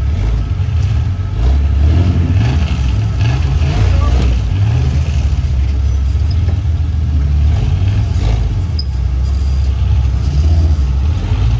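Off-road vehicle engine running with uneven throttle as the rig is worked back and forth on a rock climb.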